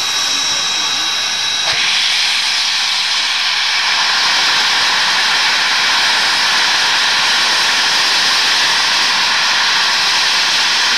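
Steam locomotive JA 1271, an ex-New Zealand Railways JA-class engine, letting off steam with a loud, steady hiss that steps up louder about two seconds in.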